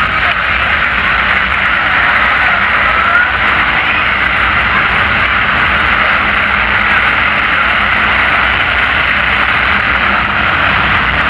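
Monster Jam trucks' supercharged, methanol-fuelled engines running across the arena, a steady loud drone.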